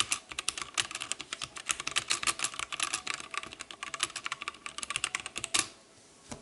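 Fast typing on a wireless mechanical keyboard: a dense run of key clicks that stops about a second before the end, followed by one or two last keystrokes.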